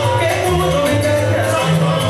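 Latin dance music played loud over a sonidero sound system, with a steady pulsing bass line and a sung melody.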